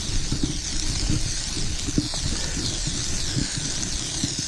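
Wind rumbling on the camera microphone, with small irregular knocks and a steady high hiss.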